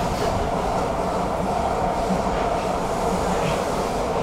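Stockholm metro train running, heard from inside the passenger car: a steady rolling rumble of wheels on rail with a low hum underneath.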